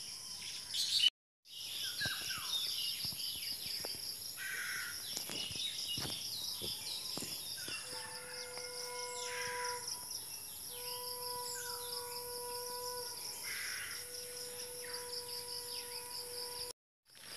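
Outdoor field ambience: a fast, evenly pulsing insect chorus runs throughout, with scattered bird calls over it. From about halfway through, a steady held tone comes and goes. The sound cuts out briefly twice, about a second in and near the end.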